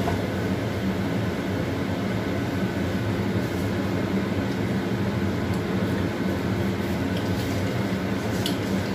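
A steady low hum and rumble fills the kitchen. Over it come a few faint scrapes of a silicone spatula stirring fried peanuts and anchovies in a wok.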